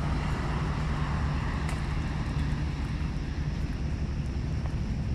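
Steady low rumble of distant engine noise, with a faint hum and no distinct single event.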